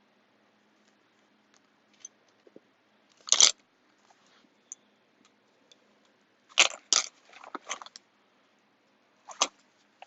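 Handling noise from rummaging in a backpack: a few short rustles and knocks, the loudest about three and a half seconds in and a cluster around seven seconds in.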